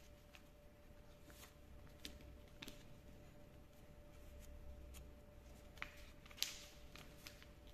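Faint handling of folded origami paper: soft rustling with scattered short crackles as the paper is creased and pressed flat, the loudest crackle about six and a half seconds in, over a faint steady hum.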